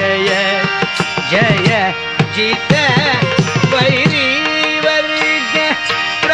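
Devotional bhajan music in a Carnatic classical style: tabla strokes under a wavering melodic line and held notes.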